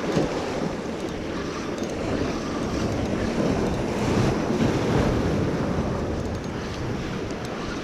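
Ocean surf breaking and washing over jetty rocks, with wind buffeting the microphone. The rush of water swells up around the middle and then eases off.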